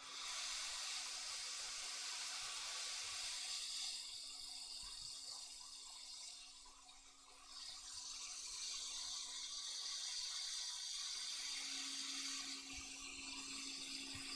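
Hot-air rework gun blowing a steady hissing stream of air onto an iPhone 8 logic board to desolder a component. The hiss starts abruptly, eases off for a moment around the middle, then comes back.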